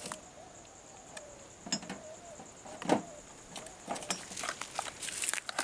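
Glass vials and small items clinking and rattling as they are handled in a plastic medical kit: scattered clicks, the loudest about three seconds in, coming more quickly near the end. A steady high insect buzz runs underneath.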